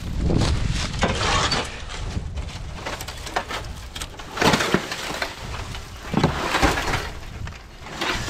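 Dry dead grass and vines crackling and snapping as a weathered wooden board is pried up from the tangle and flipped over, with a few louder snaps and scrapes along the way.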